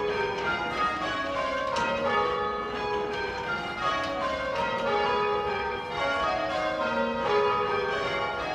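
Church tower bells rung full circle by a band of ringers, sounding rounds: the bells strike one after another down the scale, from high to low, in a repeating sequence.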